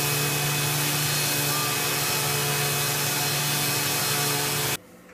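Electric orbital sheet sander running steadily on a plywood panel: a constant motor hum under the hiss of sandpaper on wood. It switches off suddenly near the end.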